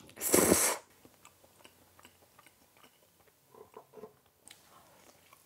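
Loud slurp of spicy black bean instant noodles lasting about half a second, then quiet chewing with faint wet clicks.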